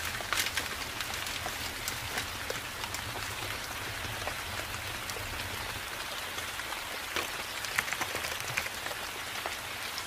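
Forest rain falling steadily: an even hiss of rain with scattered sharper drops.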